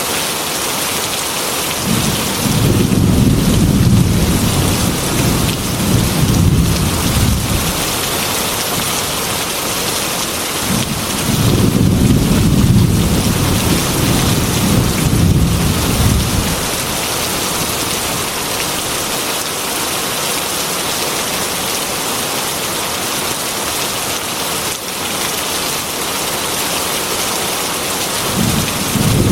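Heavy rain beating steadily against a glass window, with thunder rumbling twice for about five seconds each and a third rumble starting near the end.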